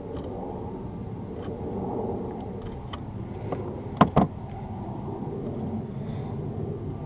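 Wire being stripped and handled with hand wire strippers: light clicks over a steady low rumble, with two sharp clicks close together about four seconds in.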